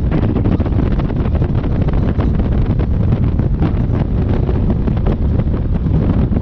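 Wind buffeting the microphone, a loud steady rumble with constant crackling flutter.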